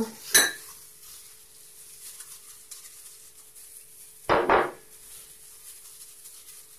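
Brief clatters of a stainless-steel mixing bowl and glass dishes as sliced vegetables are tipped into the bowl: one short knock just after the start and a stronger double clatter about four seconds in. A faint steady hum lies underneath.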